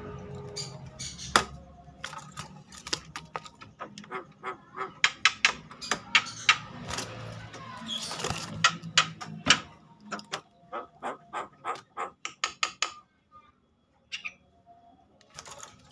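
Javan myna (jalak kebo) calling in an agitated burst: a rapid string of harsh clicks and chattering notes. The calls become more spaced out towards the end and stop briefly about 13 seconds in, followed by one more call.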